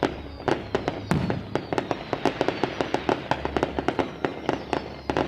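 Fireworks going off in quick succession: an irregular string of sharp bangs, several a second.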